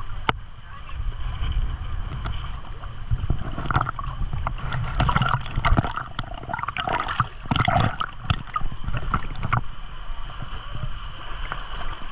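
Shallow seawater lapping and splashing at the surface right by the microphone, in many short irregular splashes over a steady low rumble.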